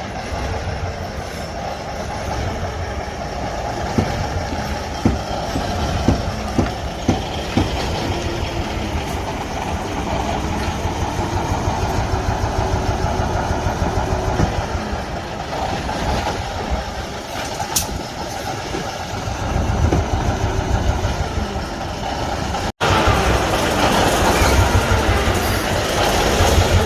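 Cummins ISX15 diesel engine running with a pulsing low rhythm, a sound the uploader puts down to internal damage and a misfire. It is louder after a cut about 23 seconds in.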